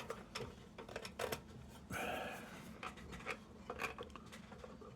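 Light metal clicks, taps and scrapes from parts of a Dietz No. 2 Blizzard lantern being handled and fitted, with a short rubbing scrape about two seconds in.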